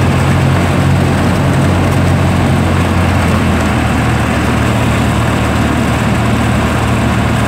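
Light single-engine propeller aircraft's piston engine and propeller running steadily, heard from inside the cabin as a loud, even low hum.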